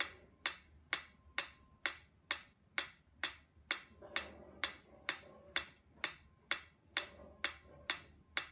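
A mechanical pendulum metronome ticking at a steady beat, about two sharp clicks a second.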